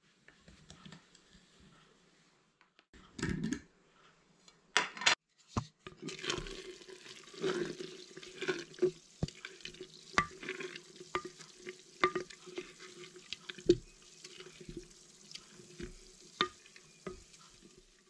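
A spatula stirring fermenting doburoku mash of rice, koji and liquid in a glass jar: continuous wet squelching and sloshing with frequent sharp knocks of the spatula against the glass. A few brief handling noises come in the first five seconds, before the stirring starts.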